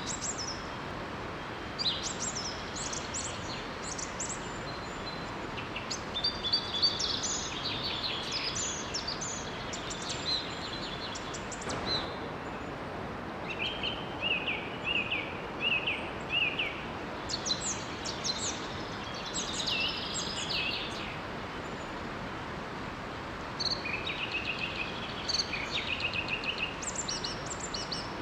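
Birds chirping and singing in short bursts of quick high notes, over a steady rushing hiss of water from a small forest waterfall.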